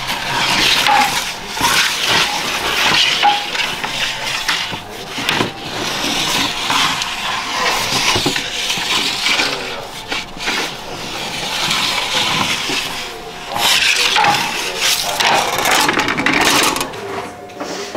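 Long baker's peel sliding in and out across the floor of a wood-fired bread oven, scraping in repeated swells of a second or two, with sharp knocks of wood and metal at the oven mouth.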